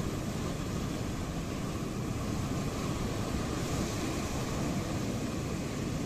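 Ocean waves washing against the coast in a steady rush of surf, swelling slightly about four seconds in.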